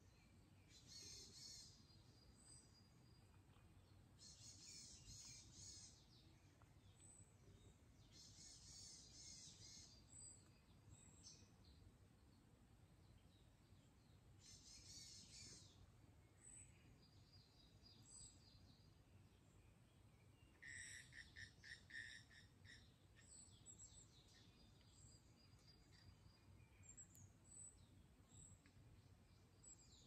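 Faint forest birdsong: one bird repeats a short, rapid, high trilled phrase every few seconds, and another gives a quick run of repeated notes about two-thirds of the way through, with thin high chirps in between. A faint steady low rumble of background noise runs underneath.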